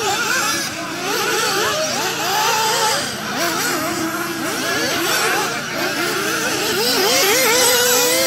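Several radio-controlled off-road cars racing, their small engines revving up and down in overlapping high-pitched whines.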